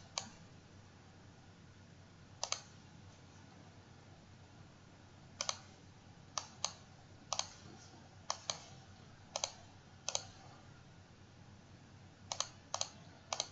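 Computer mouse clicking: about a dozen sharp, short clicks at irregular intervals, several in quick pairs, over a faint steady low hum.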